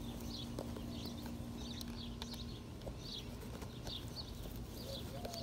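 Small birds chirping over and over, about two short calls a second, over a faint steady hum from a Greenworks 60V electric lawn mower that drops out about halfway through and comes back near the end.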